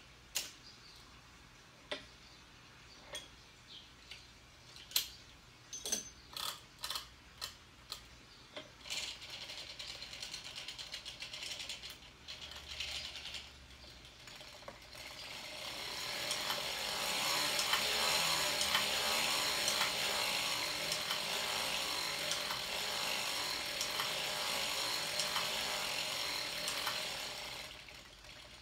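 Hand-cranked circular sock machine. First come scattered clicks as the latch needles and parts are handled. About halfway through, the crank turns steadily and the needles clatter continuously through the cams as new rows of the sock are knit.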